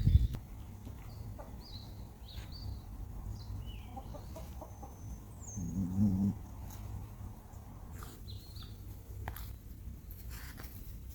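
Farmyard animal sounds: a short, low pitched call about six seconds in, with small high bird chirps scattered throughout and a few sharp clicks near the end.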